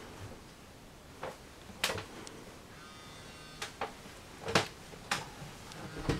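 Footsteps and knocks in a small wood-panelled boat cabin: about seven sharp, irregular knocks and clicks as someone walks across the teak floor and through a cabin door.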